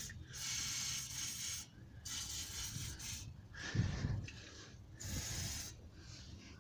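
Aerosol can of penetrating fluid hissing in several bursts of about a second each as it is sprayed onto the gearbox mount bolts, with a dull knock about four seconds in.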